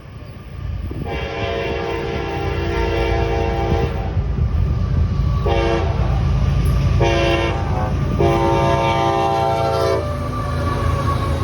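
Air horn of CSX GE ES44AH locomotive 3226 sounding a grade-crossing signal: a long blast, two short blasts and a closing long blast, over the low rumble of the approaching locomotive.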